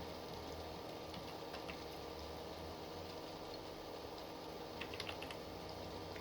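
Typing on a computer keyboard: scattered keystrokes, with a quicker run of several keys about five seconds in, over a steady background hum.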